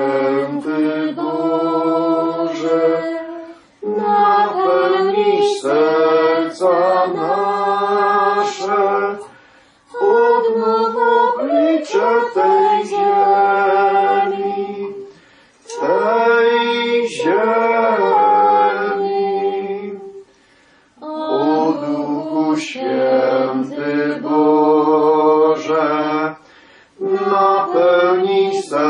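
A church hymn sung by several voices in long held phrases, with brief pauses for breath every five to six seconds.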